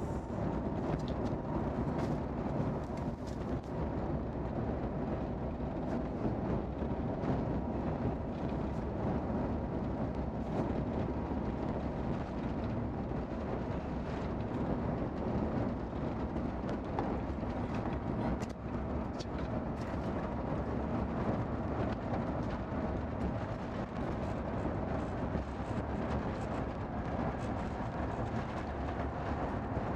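Cabin noise of a JAL Airbus A350-1000 on the ground before takeoff, heard from a window seat: the Rolls-Royce Trent XWB-97 engines and the rolling of the airframe make a steady rumble with a faint steady hum.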